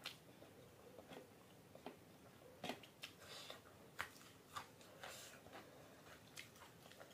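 Faint, close chewing and mouth clicks of a person eating rice and curry by hand, with scattered soft ticks and a couple of brief rustling crunches.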